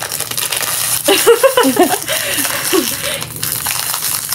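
Shiny plastic blind-bag wrapper crinkling and rattling as it is twisted and pulled open by hand, a stubborn packet that takes a struggle to open. A voice sounds briefly in the middle.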